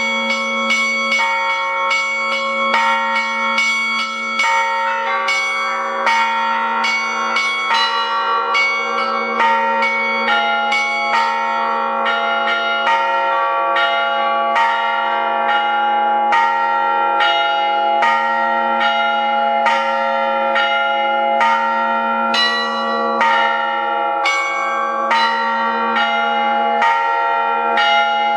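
Russian Orthodox hand bell ringing: thin-walled bells and thick bilas (struck metal plates) played together in a dense, continuous run of strikes, several a second, over a steady low ring.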